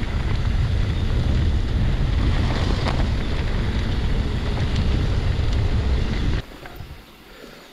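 Heavy wind buffeting the microphone, a loud low rumble with a few faint clicks, which drops away suddenly about six seconds in.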